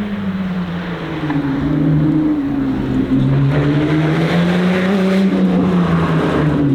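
Supercharged 3.5-litre V6 of a Lotus Exige S driven hard. The engine note drops over the first couple of seconds, climbs steadily under acceleration through the middle, and eases down again near the end.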